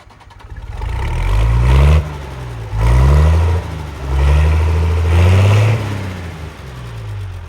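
A large farm vehicle's engine revving up and dropping back about three times in quick succession, each rise in pitch cut off abruptly. It settles to a lower, steadier run near the end.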